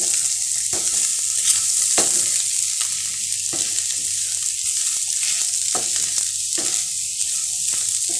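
Scrambled egg, goat brain and onion sizzling in a nonstick frying pan as a spatula stirs and tosses them, its knocks and scrapes against the pan coming about once a second over the steady sizzle.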